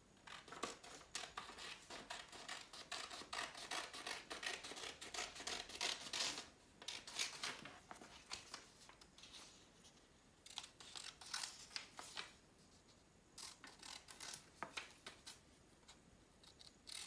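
Scissors cutting thin paper: runs of quick snips with short pauses between them, the longest pause about eight seconds in.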